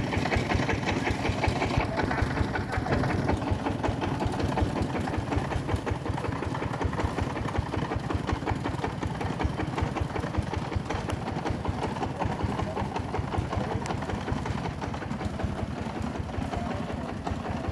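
Engine of a home-built bandsaw sawmill running steadily, a fast even pulsing beat.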